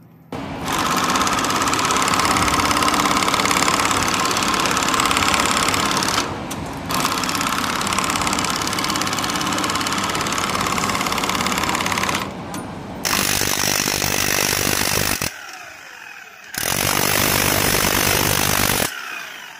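Loud power-tool noise in several clips that start and stop abruptly. Near the end, an electric demolition hammer chiselling against a copper bar on a large electric motor's stator.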